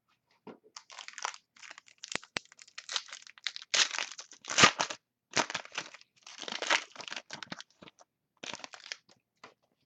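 A trading-card pack wrapper being torn open and crinkled by hand, in a string of irregular rustling bursts.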